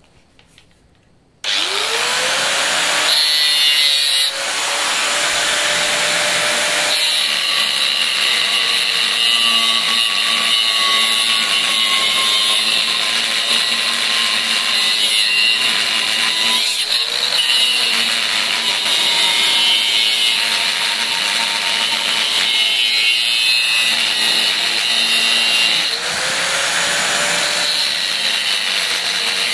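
Handheld angle grinder with a cut-off disc switched on about a second and a half in, cutting through the steel shell of an inverter air-conditioner compressor. Its whine drops in pitch as the disc bites into the metal and rises again briefly when it eases off, around the middle and near the end.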